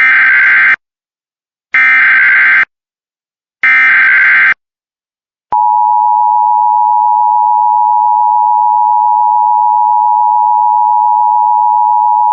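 Emergency Alert System header: three short bursts of buzzy digital data, then a long, steady, loud attention tone starting about five and a half seconds in.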